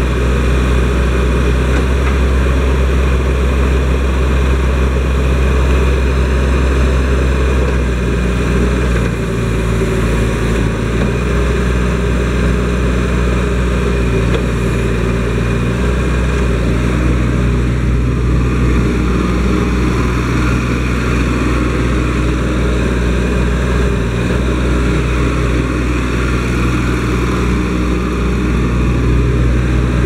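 IHI IS-20S mini excavator's diesel engine running steadily while the boom, arm and bucket are worked. Its low note shifts a few times as the hydraulic load changes.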